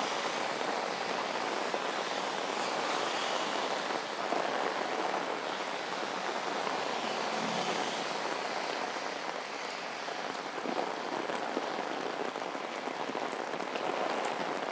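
Heavy tropical rain falling steadily and drumming on an umbrella held overhead, with cars swishing past on the flooded road.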